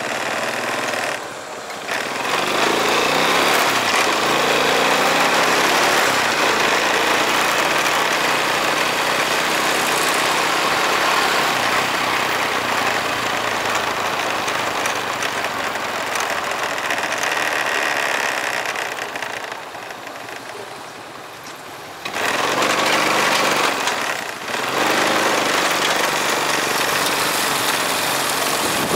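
Motorbike engine running with wind and road noise as the bike rides along a street. It eases off for a couple of seconds about two-thirds of the way in, then picks up again.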